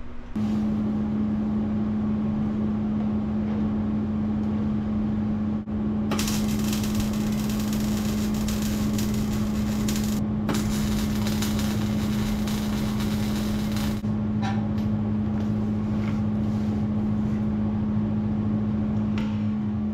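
A steady mechanical hum, with a loud hiss that starts about six seconds in, breaks off for a moment near ten seconds and stops suddenly about eight seconds after it began.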